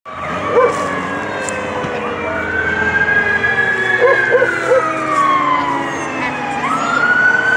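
Fire engine siren wailing, its pitch climbing, holding, then sliding down, and climbing again near the end, over the steady noise of passing highway traffic.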